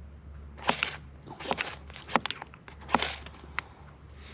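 Ferrocerium fire steel scraped with a striker about five times, each a short sharp rasp, less than a second apart, throwing sparks to light fatwood.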